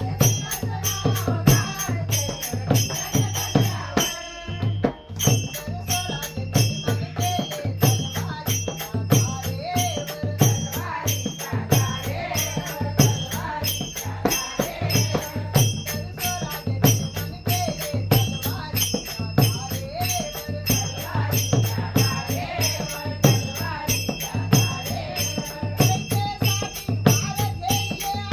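Instrumental interlude of a Marathi devotional song: music with a steady percussion beat and a melody line, thinning out briefly about four seconds in.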